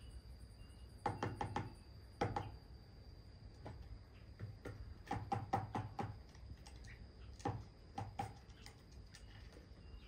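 A bird pecking and tapping its beak on hard objects on a table: short clusters of quick knocks about a second in, around two seconds, a longer run around five to six seconds in, and a few more near the end. A faint steady high whine runs underneath.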